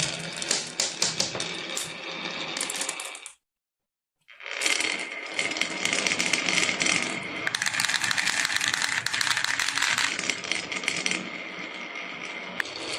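Marbles rolling and clacking down a wooden marble run: a dense clatter of small hard clicks and rattles. It stops abruptly about three seconds in and resumes about a second later.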